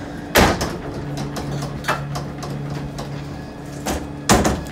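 Two loud knocks about four seconds apart, with a few lighter clicks between, over the steady low hum of an idling bus.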